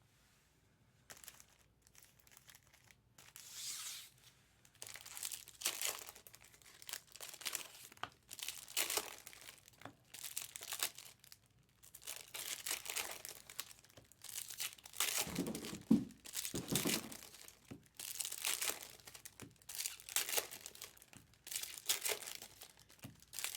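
Foil trading-card pack wrappers crinkling and tearing as packs are ripped open and handled, in a run of short rustling swishes.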